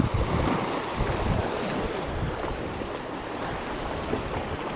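Sea surf washing against rocks, a steady hiss with a brief louder wash about a second and a half in, with wind rumbling on the microphone that eases off.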